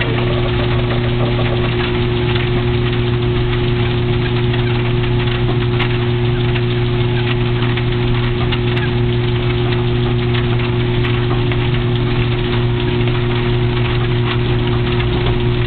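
Motorized treadmill running steadily at about 3 mph, its drive motor giving an even, unchanging hum over the noise of the moving belt as a dog walks on it.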